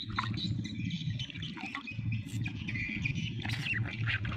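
Water sloshing and dripping as a plastic toy crab is swished in a basin of water and lifted out, with birds chirping in the background.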